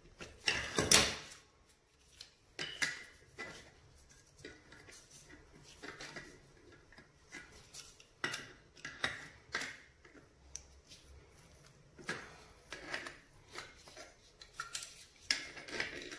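Metal-on-metal clicks and clinks of grips (water pump pliers) gripping and nipping up the brass compression nut on a copper pipe fitting, in short separate strokes, the loudest about a second in.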